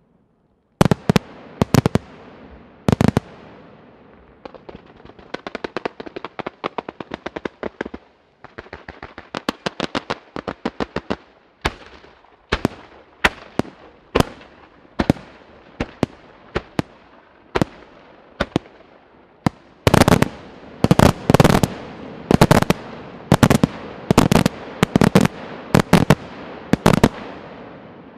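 Aerial fireworks display. A few loud shell bursts about a second in, then rapid strings of smaller crackling reports, then single bangs about once a second, building near the end into a dense barrage of loud bangs.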